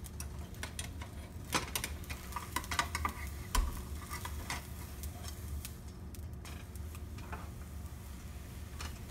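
Pancake batter sizzling in a frying pan while a metal fork scrapes and taps against the pan, loosening the pancake's edges. Scattered sharp clicks sound over a steady low hum, the loudest about three and a half seconds in.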